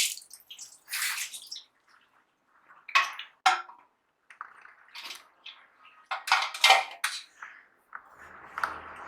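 Kitchen pots and dishes clattering in several separate bursts of knocks and clinks, with a trace of water.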